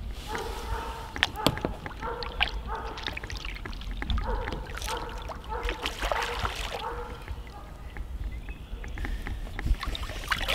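Fishing reel on a bent rod, its drag buzzing in short runs and clicking as a hooked carp pulls. About five seconds in, the carp splashes as it thrashes at the surface.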